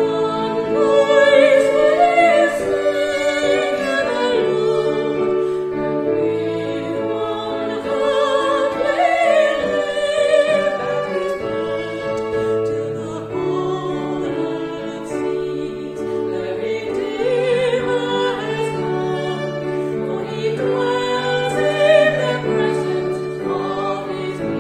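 A woman singing a hymn with vibrato, accompanied by violin and keyboard holding sustained chords under the melody.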